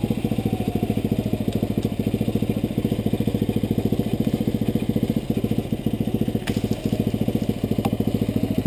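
Yamaha Rhino side-by-side's single-cylinder four-stroke engine idling with an even thumping beat, about ten a second. Two sharp clicks near the end.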